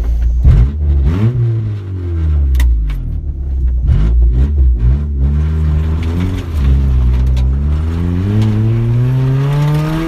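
Honda Del Sol's D15B 1.5-litre four-cylinder engine pulling under hard acceleration, heard from inside the cabin. It revs up and falls back several times, then climbs steadily in pitch near the end. The exhaust is open after the catalytic converter because the rest has rotted off.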